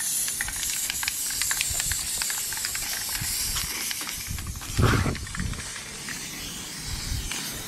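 Aerosol spray can hissing steadily as it sprays a gloss coat onto a bike frame, with a dull low thump about five seconds in.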